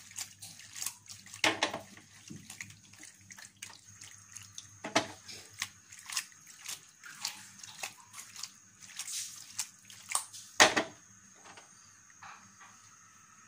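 Penne in tomato sauce being tossed and stirred with a wooden spatula in a nonstick frying pan: irregular wet slaps and scrapes, the loudest about 1.5, 5 and 10.5 s in. The strokes stop after about 11 s, leaving a faint steady hum.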